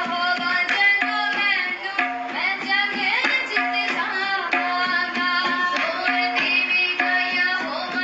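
Christian worship song with a tabla playing a steady, regular beat under a melody, with some singing.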